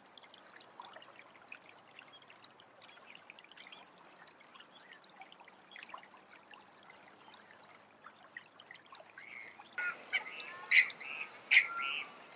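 A faint trickle of water with light drips, then about ten seconds in a bird starts calling: a run of short, loud, repeated calls.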